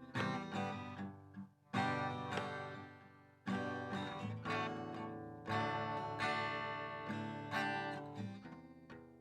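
Acoustic guitar slowly strumming chords. Each chord rings out and fades before the next is struck, with a brief stop about a second and a half in.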